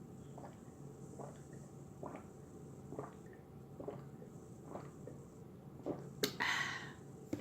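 Close-up wet mouth sounds from eating and drinking, a soft squish repeating roughly once a second. Near the end comes a click and a short breathy rush.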